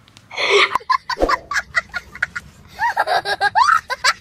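A person laughing: a breathy burst about half a second in, then short clicking sounds and high squealing hoots in the last second or so.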